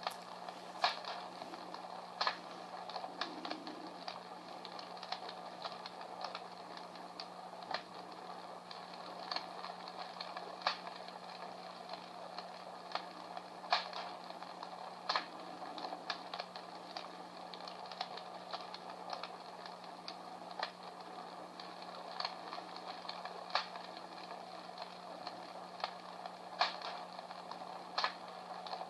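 A Comfort Smart Fire Crackler, a battery-operated sound-effect device, playing a recorded crackling fire: irregular sharp pops and snaps every second or two over a steady hiss and a low hum.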